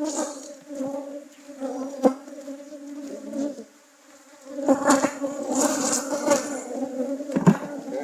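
Honey bees from an opened hive buzzing in a dense, steady hum, the defensive buzz of a colony stirred up by the hive being worked. It fades briefly about halfway through, then comes back louder and busier, with a few sharp taps.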